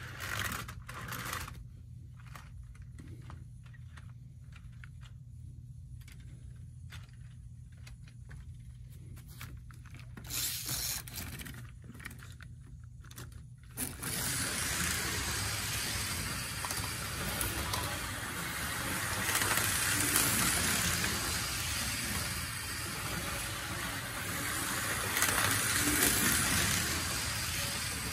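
Plastic HO-scale train cars being handled and clicked onto the track, with faint scrapes. About halfway through, the Tyco HO train starts running: a steady whirring rumble of its motor and wheels on the track, swelling twice as it comes round.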